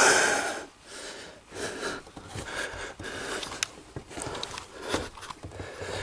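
A man breathing hard, with a loud exhale right at the start, then scuffing, rustling and a few light knocks as he crawls and shifts about.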